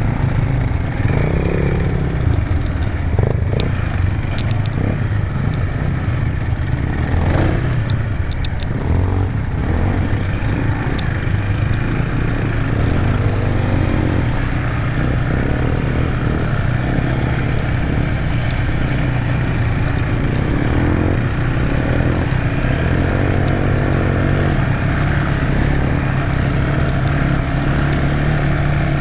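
Quad bike (ATV) engine running as it is ridden, its pitch rising and falling with the throttle, with a few sharp clicks along the way.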